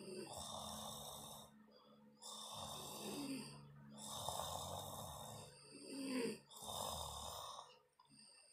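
A person snoring, a rasping breath every second or two.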